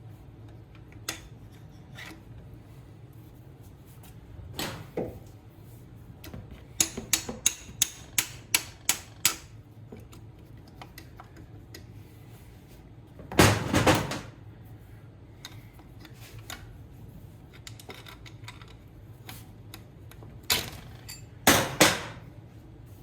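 Light metal taps and knocks from hand tools working on a GY6 150cc engine's piston while its wrist pin is being driven out. The taps come in a quick run of about seven near the middle, with two louder clattering knocks later on.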